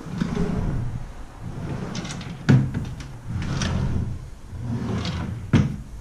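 Doors of bedroom furniture being shut by hand. There are two sharp knocks, about two and a half and five and a half seconds in, with softer knocks and low handling noise between them.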